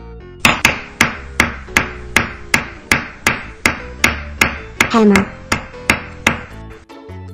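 Hammer blows struck at an even pace, about two and a half a second, seventeen or so in all, with a short ring after each.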